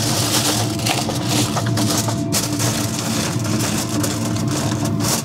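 Aluminum foil crinkling and crackling as it is pressed and crimped down over a foil pan, over the steady hum of a running Lone Star Grillz pellet grill.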